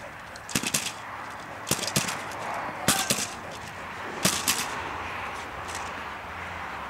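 Sharp cracks from a dog-training decoy's stick being struck, in quick double cracks about once a second, four times over, then a single fainter crack.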